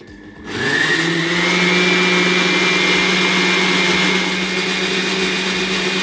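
Blender motor starting about half a second in, its whine rising briefly as it spins up, then running steadily at speed as it purées roasted butternut squash, peppers and onion with hot water into soup.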